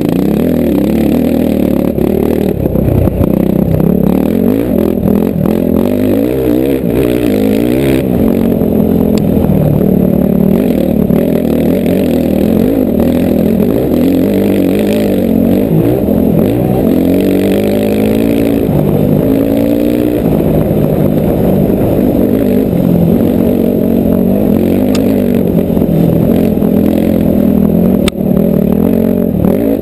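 Four-stroke dirt bike engine revving up and down again and again as the rider works the throttle and gears on a rough trail, with a few sharp knocks from the bike over the ground.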